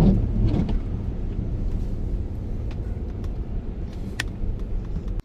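Steady low rumble of a car driving, heard from inside the cabin, with one short click about four seconds in.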